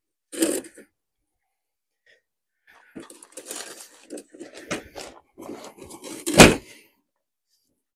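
Folding camping table being unfolded and its leg frame set up: a short rattle about half a second in, then a run of clicks and clatters from the frame, with one loud clack a little after six seconds.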